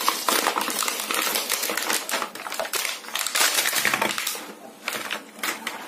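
Plastic blister packaging of a toy car set being pulled and torn open by hand: a dense run of crackles and snaps, briefly quieter about two-thirds through.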